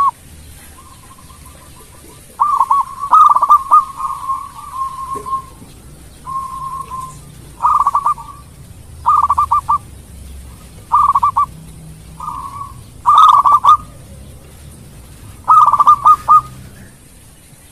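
Zebra dove (perkutut) cooing: short, rapidly pulsing coo phrases repeated every second or two, with one longer drawn-out phrase a few seconds in.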